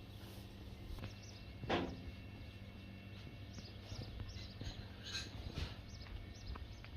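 Faint outdoor ambience with a low steady rumble and scattered high chirps of small birds, and one short louder sound about two seconds in.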